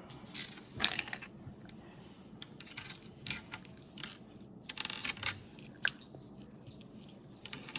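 Small plastic toy packaging being opened and handled: scattered light clicks and crinkles, with a longer crinkle about five seconds in.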